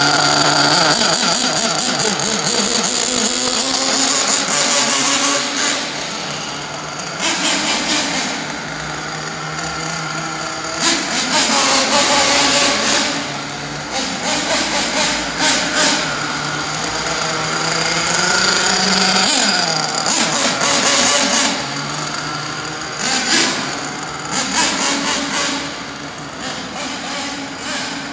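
Nitro glow engine of a Kyosho Inferno NEO ST 3.0 RC truggy running as the car is driven, its pitch rising and falling as the throttle is worked, with several loud bursts of hard acceleration.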